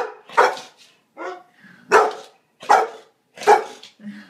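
A boxer dog barking six times in a row, short loud barks spaced roughly half a second to a second apart.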